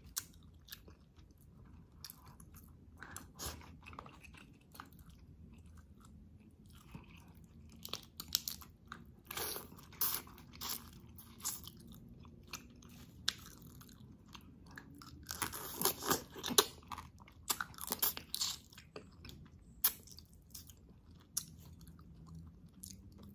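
Close-miked eating of shrimp and catfish: wet chewing, biting and lip smacks, with many irregular clicks and crunches. The sounds come thickest about two-thirds of the way through.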